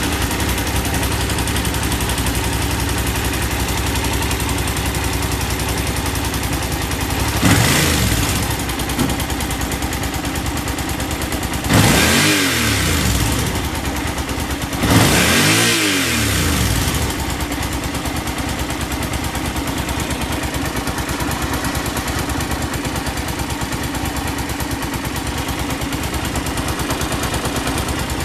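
Yamaha TDM900's 897 cc parallel-twin engine idling just after starting, with the exhaust note heard. The throttle is blipped three times, about seven, twelve and fifteen seconds in, each time revving up and falling back to idle; the last two blips are the loudest.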